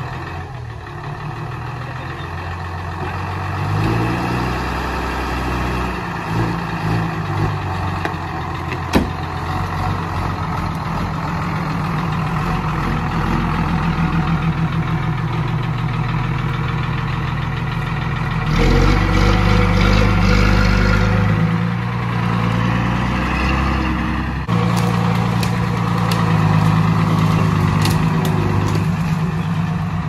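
JCB 3DX backhoe loader's diesel engine running, its speed rising and falling as it works. A single sharp knock about nine seconds in, and a louder, deeper stretch of engine about two-thirds of the way through.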